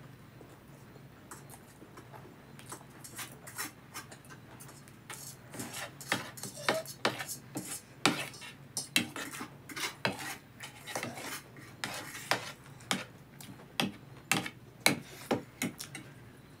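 Steel spoon and fork clinking and scraping against a plate while noodles are gathered and scooped up: a few light clicks at first, then many sharp clicks from about five seconds in.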